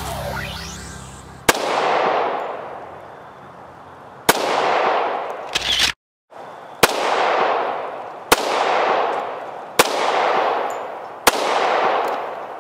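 A handgun fired about seven times, the shots spaced one to one and a half seconds apart, each crack followed by a long echo that fades away.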